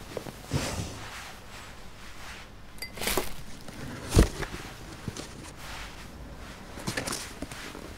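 Handling noises of a box being moved about: scrapes and light knocks, with one sharp, loud knock about four seconds in.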